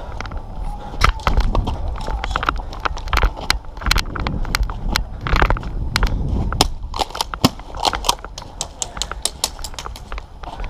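Airsoft guns firing, many sharp irregular shots with a low rumble underneath.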